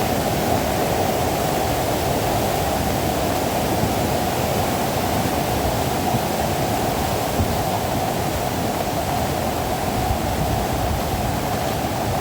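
Fast-flowing floodwater rushing steadily, an even, unbroken noise of moving water.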